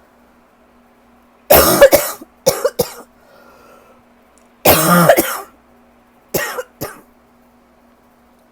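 A person coughing in four short fits of harsh coughs, the longest near the middle: a rough allergy cough with a tight chest.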